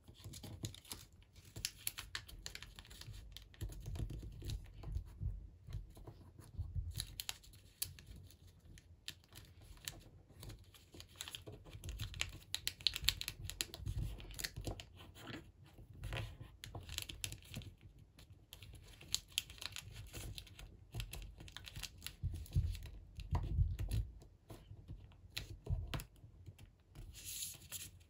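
Origami paper being folded and creased by hand: irregular rustling, crinkling and small clicks as the sheets are pressed flat and tucked, with scattered low thumps.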